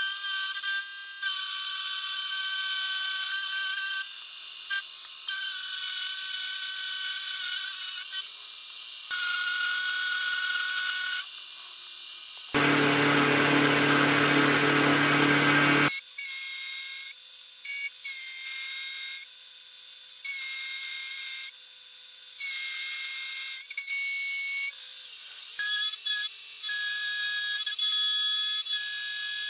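End mill roughing a slot in a cold-rolled steel block on a milling machine, a high cutting whine heard in short segments that change abruptly. For about three seconds around the middle the sound is fuller, with the low hum of the spindle running underneath.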